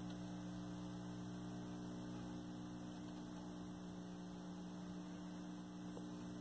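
Steady low hum from a 1973 Admiral hybrid color TV, heard through the set's own speaker; it is the sign of a power-supply filter capacitor going open.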